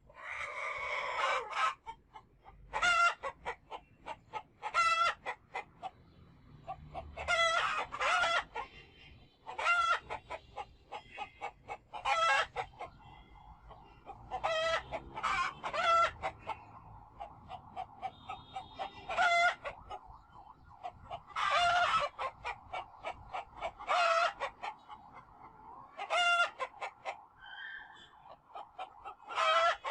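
Domestic fowl calling: a run of quick short notes followed by a longer call, repeated every one to two seconds, with a fainter steady calling underneath in the second half.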